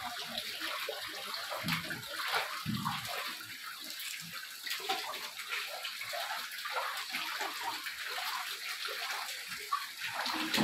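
Muddy floodwater sloshing and swirling across the floor of a flooded house, a steady splashy wash of water.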